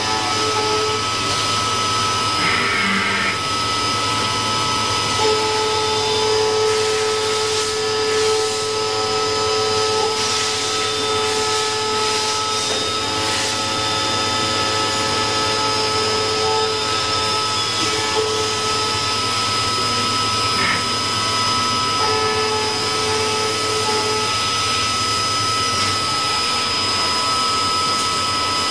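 CNC machine running: a steady whine of several held tones over a constant hiss.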